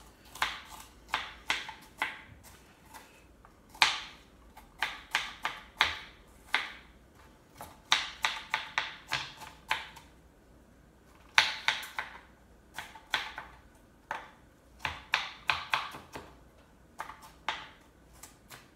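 Kitchen knife chopping apple into small bits on a plastic cutting board: quick sharp taps in runs of several a second, broken by short pauses.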